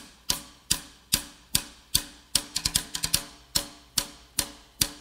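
A song starts: its intro is a steady drum beat of about two and a half hits a second, with a few quicker hits partway through.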